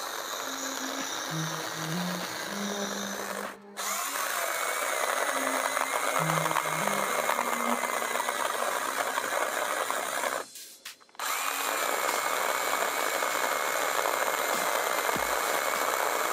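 ValueMax 12 V cordless mini chainsaw cutting through a 9 cm log: a steady high motor whine with the rasp of the chain biting into wood. The sound cuts out briefly about three and a half seconds in and again near ten and a half seconds, and each time the whine picks back up.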